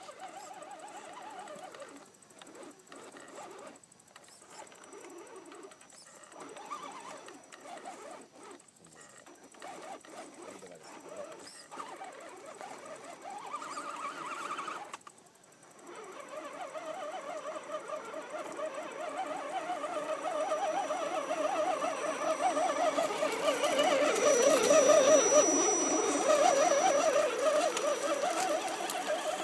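RC crawler's small electric motor and geartrain whining, in short stop-start spurts at first. About halfway through it runs continuously and grows louder, peaking a few seconds before the end.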